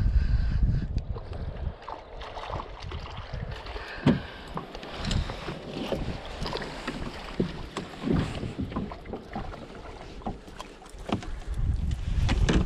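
Wind buffeting the microphone near the start and again near the end, with irregular knocks and splashes of water between, like a small boat being rowed or paddled.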